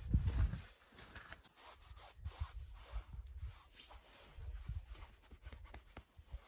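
Snow scraping and crunching in short, irregular strokes, with a heavy low thump right at the start.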